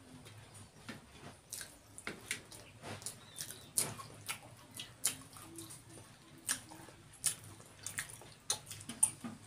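Eating sounds from fried samosas: irregular sharp crunches and wet clicks, several a second, as the crisp pastry is broken apart by hand and chewed.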